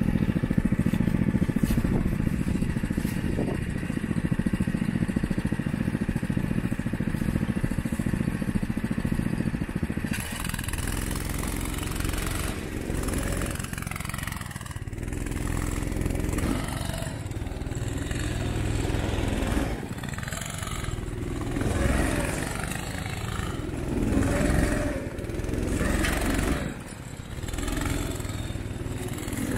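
Engine of a Vaellan tracked snow vehicle running steadily at first, then, about ten seconds in, revving up and down over and over as it drives slowly through deep powder snow.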